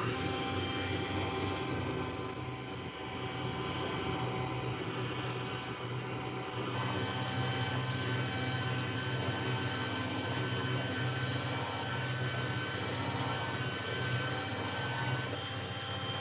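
Belt grinder running steadily, its abrasive belt grinding a forged steel hammer head.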